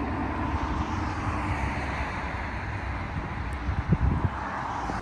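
Steady outdoor traffic noise from passing and idling cars, with wind rumbling on the microphone and a few low wind buffets about four seconds in.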